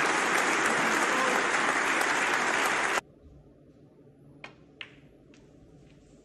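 Audience applauding in an arena, cut off suddenly about three seconds in. Then a quiet hall with three sharp clicks of a snooker shot: cue tip on cue ball and balls striking as the blue is played.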